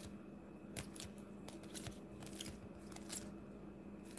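Rigid plastic card holders clicking and rustling faintly as a stack of trading cards is handled and sorted by hand, with a few light clicks spread through it over a steady low hum.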